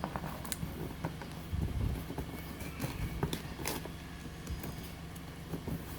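Packaging being handled during an unboxing: scattered rustles and light clicks over a steady low hum.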